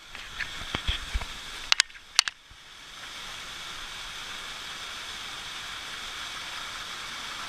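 A few sharp knocks and clicks in the first couple of seconds, then the steady rush of falling water from a waterfall and stream, with a thin high hiss over it.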